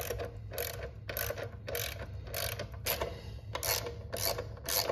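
Socket ratchet wrench clicking in short runs, about two strokes a second, as a suspension linkage bolt is tightened down.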